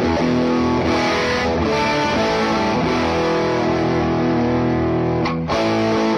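Electric guitar played through Neural DSP's Morgan amp simulator with every control turned fully up, giving distorted chords that ring out and sustain. The chords break off briefly about five seconds in before a new chord is struck.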